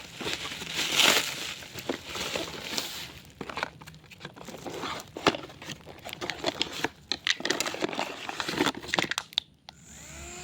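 Plastic packaging of a handheld fan crinkling and rustling as it is unwrapped, then many small clicks and knocks of handling from about three seconds in.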